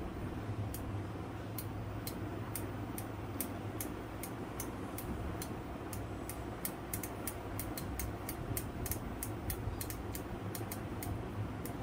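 Restored vintage hand drill's gearing clicking as the crank is turned, in irregular sharp ticks that come faster after the middle, over a steady low hum.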